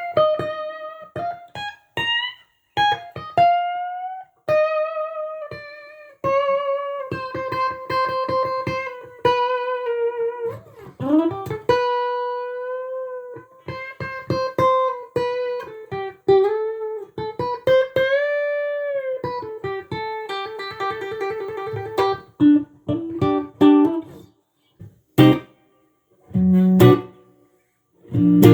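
Tomson Stratocaster-style electric guitar played as a lead: long single notes bent and shaken with vibrato, with a deep dip in pitch and back about eleven seconds in. Near the end come quick repeated notes and a few short, loud chord hits.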